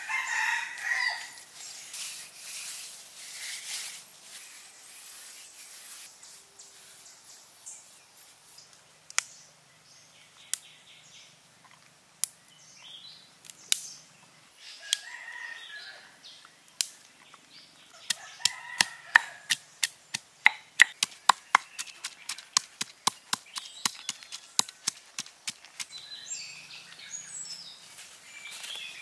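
Stone pestle pounding fresh turmeric root in a stone mortar: a quick run of sharp knocks, about four a second, in the second half. Bird calls come and go in the background.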